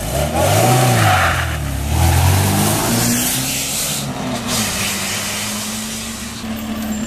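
A classic rally car's engine revving hard as the car pulls away from a time-trial start, its pitch climbing and dropping several times in the first few seconds, then settling into a steady drone that slowly fades as it drives off.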